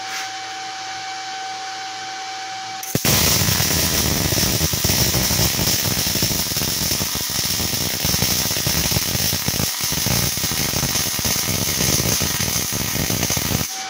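MIG/MAG welding arc with 0.9 mm wire at about 130 A and 18.3 V, a dense, even crackling sizzle while laying a bead. It strikes suddenly about three seconds in and cuts off just before the end, after a steady hum.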